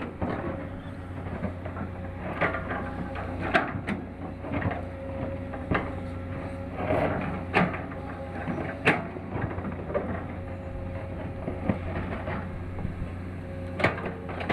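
Excavator working: its engine runs with a steady low hum and a thin whine, and irregular sharp knocks and clanks come through it, several in a few seconds.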